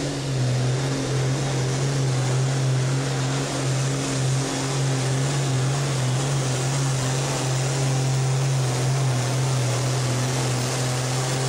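Green John Deere hot farm pulling tractor's diesel engine running hard while pulling the sled, a loud, steady drone that holds one pitch.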